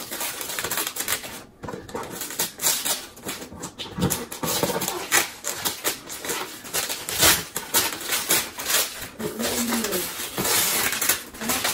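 Gift wrapping paper crinkling and tearing as a wrapped box is unwrapped by hand, a dense, continuous rustle.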